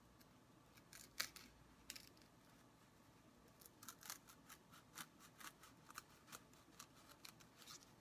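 Small knife blade sawing and scraping through layered foam: faint, short scratching strokes, a couple about a second in, then a quick run of them, about three or four a second, from a little past halfway to near the end.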